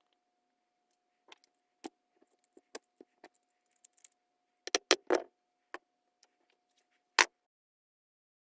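Small hard parts clicking and clinking as they are handled, a string of separate sharp knocks with the loudest cluster about five seconds in and a single loud clack a couple of seconds later, over a faint steady hum.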